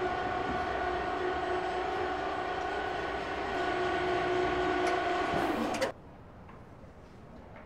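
A single steady, horn-like tone held for about six seconds, then cut off suddenly.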